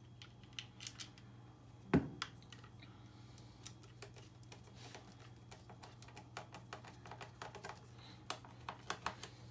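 Light clicks and taps of a plastic washing-machine drain pump being handled and fitted by hand, with one louder knock about two seconds in, over a steady low hum.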